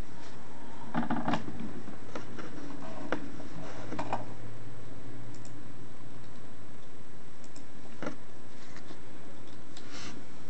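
Scattered light clicks and taps from a hand handling a Nokia N8 smartphone, a few close together about a second in and then single ones every second or few, over a faint low hum.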